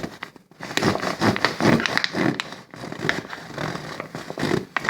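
A knife sawing through a thin plastic soda bottle: irregular scraping and crackling strokes as the blade cuts the plastic.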